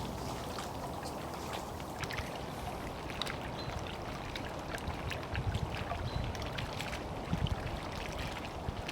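Moving water, with scattered small clicks and a few low thumps about halfway through and again near the end.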